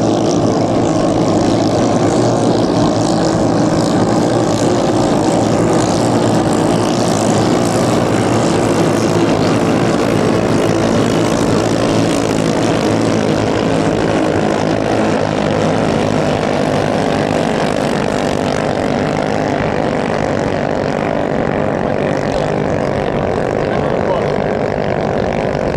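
Several 6–7 hp ketinting longtail racing boat engines running flat out together, a loud, steady, high-revving drone that holds at one pitch.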